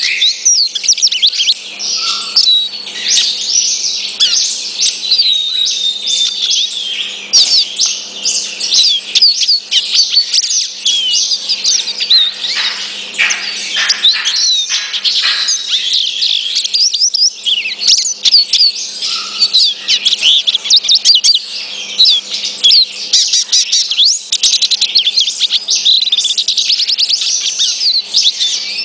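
Male lesser goldfinch ('dominico') singing a long, rapid twittering song of fast chirps and short glides, with no real pauses.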